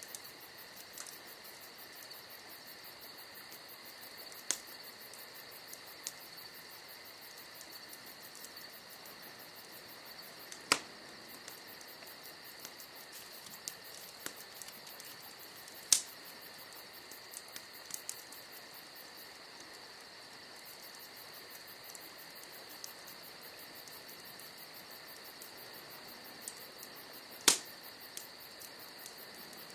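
Wood fire crackling with scattered small snaps and a few sharp loud pops from the burning logs, over a steady high trill of crickets.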